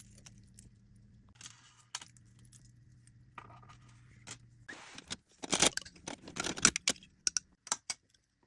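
Small objects being handled while packing an order: faint rustling at first, then from about halfway a quick run of loud clicks, taps and rustles.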